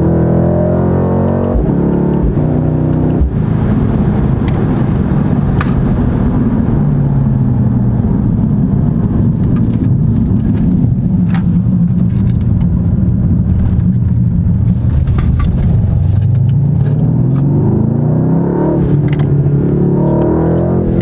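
Mercedes-AMG C63 Coupe's 4.0-litre twin-turbo V8 driving and accelerating. The engine note steps through gear changes at first, settles into a dense low rumble with a few sharp exhaust cracks, and climbs in pitch again near the end.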